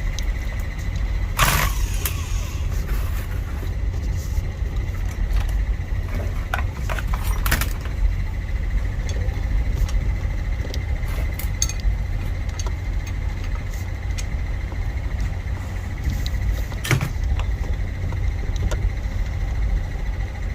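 A steady low rumble of background noise with a faint high whine, broken by a few sharp clicks and taps as small metal parts of a starter solenoid switch are handled and fitted together.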